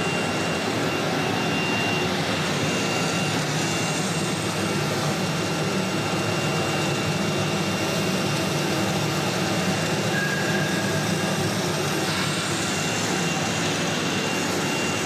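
Steady drone of CNC router workshop machinery, with a thin high whine running through it and a brief higher tone about ten seconds in.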